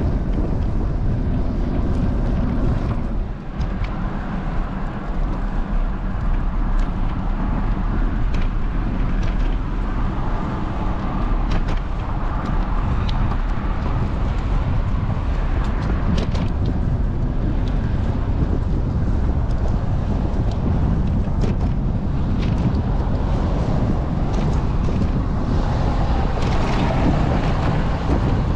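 Steady road and wind noise from a moving vehicle, with wind buffeting the microphone and a few brief clicks.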